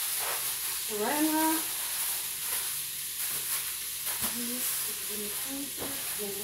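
Bacon sizzling steadily as it fries around a chicken breast in a hot waffle iron. A voice hums briefly about a second in and again with a few short notes later on.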